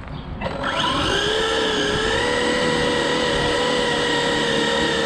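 Brushless electric motor and gearing of a Losi No Prep drag car whining at full throttle on a drag pass. The whine comes in about half a second in, climbs quickly in pitch, then holds steady at top speed.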